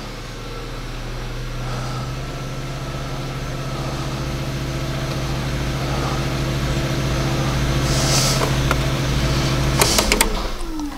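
Opel Astra H's 1.6-litre petrol engine idling steadily, heard as an even hum. Near the end come a few sharp clicks, and the steady hum breaks off into a tone falling in pitch.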